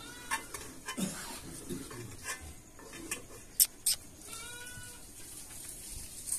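A young white cat meows: a short call near the start and a longer, rising-and-falling meow about four seconds in. Scattered soft clicks from handling run through it, and a pair of sharp clicks just before the long meow is the loudest sound.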